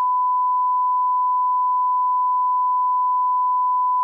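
Steady, loud single-pitch test tone: the reference line-up tone that goes with television colour bars.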